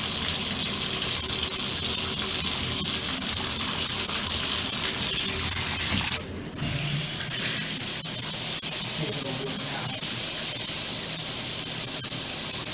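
Bathtub faucet running steadily into the tub, the water collecting in a slow-draining tub. About six seconds in the flow briefly drops off, then carries on a little quieter.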